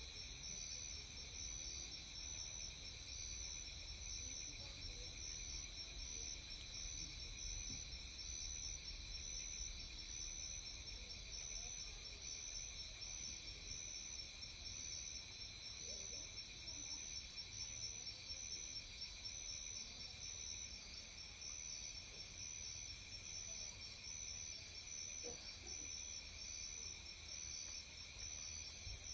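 Chorus of insects trilling steadily, several high-pitched songs overlapping at different pitches, one of them pulsing in an even rhythm.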